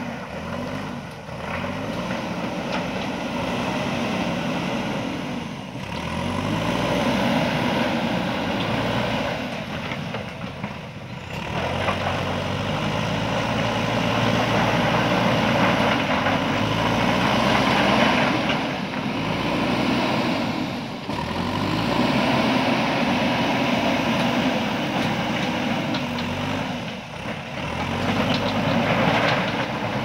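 JCB backhoe loader's diesel engine working under load as the front bucket pushes into a pile of stones, its note rising and falling several times as the operator revs it up and eases off.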